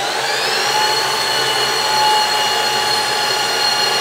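Precision Matthews PM-1440GT lathe spindle, driven by a 3 hp Marathon E470 motor on a Hitachi WJ200 VFD, spinning a 5C collet chuck in H1, its 2000 RPM top gear. It runs with a loud whine that rises in pitch for the first second as it comes up to speed, then holds steady and smooth.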